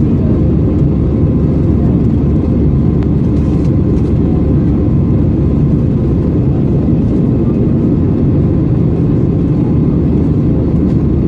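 Airbus A320 cabin noise: a loud, steady low rumble of engines and airflow heard from a passenger seat.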